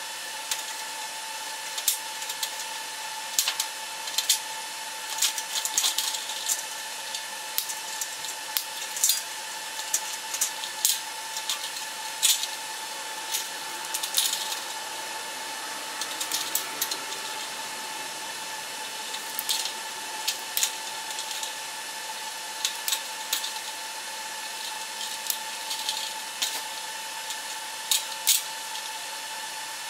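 Hand wire cutters and strippers snipping and stripping the wiring of a fluorescent light fixture: irregular sharp clicks and snaps as the wires are cut and handled against the sheet-metal fixture, over a steady high hum.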